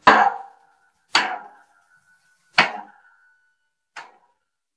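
A drum's skin head struck four times, a little over a second apart, each hit ringing briefly and dying away; the last hit is faint.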